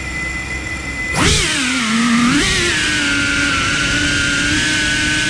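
Cinewhoop FPV drone's motors and ducted propellers whining at idle, then throttled up for take-off about a second in with a sharp rise in pitch that falls back. A second short surge comes about two and a half seconds in before the whine settles to a steady pitch in flight.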